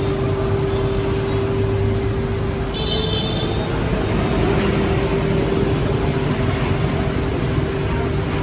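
Steady street traffic noise with a constant hum, and a short high-pitched tone about three seconds in.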